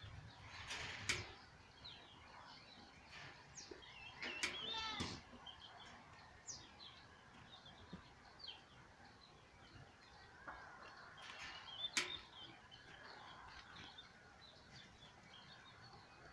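Birds chirping and calling, short chirps and sweeps scattered throughout, with a longer warbling call about four seconds in. Two sharp knocks stand out, one about a second in and one about twelve seconds in.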